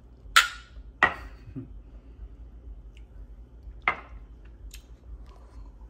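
Glass jars clinking: two sharp, ringing knocks in the first second, and another about four seconds in as a jar is set down on a granite countertop.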